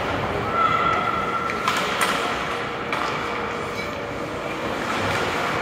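Ice hockey arena ambience during play: a steady hum of the rink with a few sharp knocks of sticks and puck about two and three seconds in, and a thin steady tone lasting about a second near the start.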